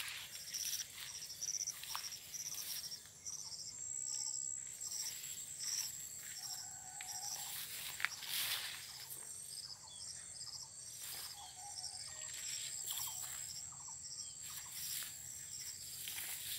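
Insects chirping: a steady high-pitched trill with a pulsed chirp repeating about twice a second. Over it come occasional brushing of leaves and one sharp click about eight seconds in.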